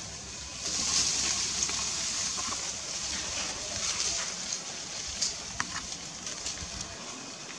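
Steady high-pitched hiss of outdoor ambience that swells a little under a second in and holds, with a few short sharp clicks past the middle.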